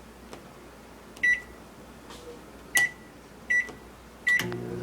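Microwave oven keypad beeping four times as the cooking time is entered. Near the end the oven starts running with a steady hum.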